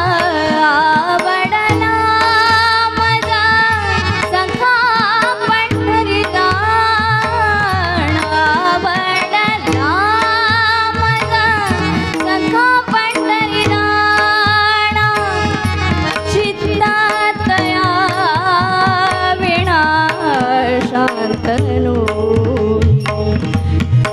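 A woman singing a Marathi devotional bhajan in long, sliding melodic runs, with tabla accompaniment.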